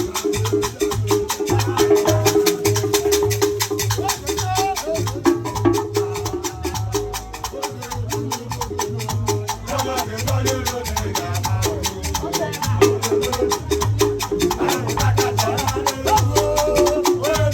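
Igbo ogene music: a fast, steady run of metal gong strokes over a repeating low bass pattern, with a wavering melodic line, at times a voice, above it.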